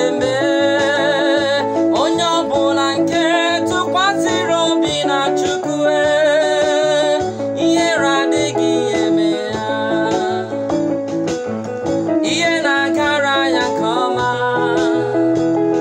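A man singing an Igbo gospel praise song with wavering vibrato over steady instrumental backing of held chords and bass.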